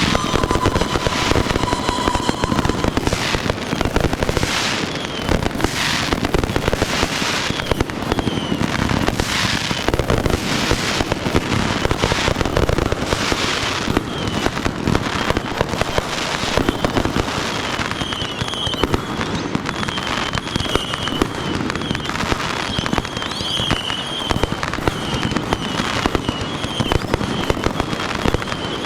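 Fireworks display in a dense, continuous barrage of bursts and crackling, with a whistle falling slightly in pitch at the start and warbling high whistles repeating through the second half.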